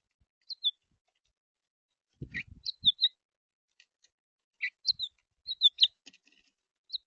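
Small songbirds chirping at a seed feeder: short, high chirps that slide downward, coming in quick clusters. A few low knocks sound a little over two seconds in.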